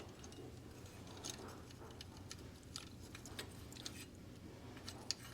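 Faint, irregular light clicks and taps, several a second, from tools and small parts being handled, over a low steady hum.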